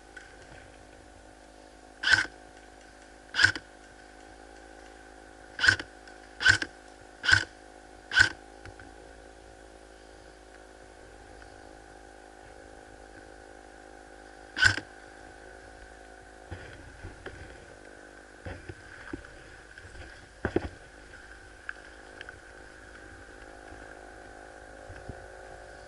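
Airsoft gun fire: seven loud, sharp shots or very short bursts, six of them within the first eight seconds and one more about fifteen seconds in. A steady hum lies under them, and softer rustling and clicks follow near the end.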